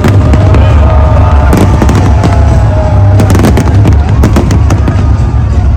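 Loud fireworks display: a dense run of sharp cracks and bangs over a constant deep rumble.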